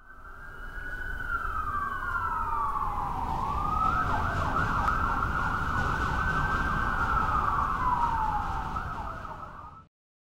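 Emergency vehicle siren in a city: wailing tones fall slowly, switch about four seconds in to a fast warbling yelp, then fall again, over a steady low traffic rumble. It fades in and cuts off abruptly near the end.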